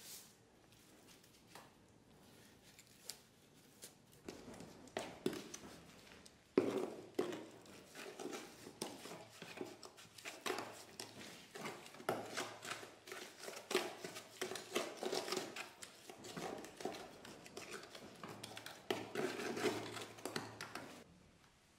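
Gloved hand packing wet cement mix into a plastic bucket mould: irregular soft pats and scrapes against the plastic. They are sparse at first and grow busy after about four seconds, with one sharper knock a little later.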